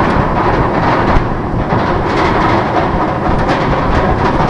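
Nitro, a Bolliger & Mabillard steel hyper coaster, with its train climbing the chain lift hill. It makes a steady, rapid rattling clatter of the lift chain and wheels on the track.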